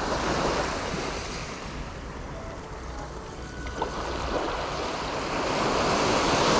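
Small waves washing up on a sandy beach, the surf swelling about half a second in and again near the end, with one short click about four seconds in.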